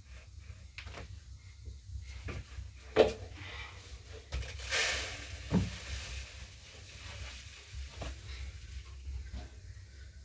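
Light clatter and knocks of a metal tray and a plastic bowl being handled on the floor during dough-making, with one sharp knock about three seconds in and a short hiss near the middle, over a steady low hum.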